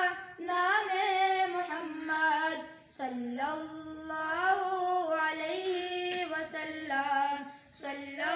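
Schoolboys singing an Urdu naat into a microphone, a single high melodic line of held, gliding notes, with brief pauses for breath about three seconds in and near the end.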